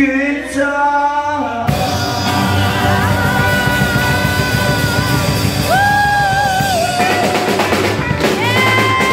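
Live rock band playing: a male vocalist sings held notes over strummed acoustic guitar, and the drum kit with cymbals comes in fully about two seconds in.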